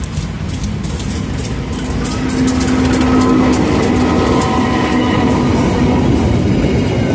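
Diesel locomotive passing close by: a steady engine note over the noise of wheels on rails, growing louder about two seconds in, with faint ticks of wheels over rail joints.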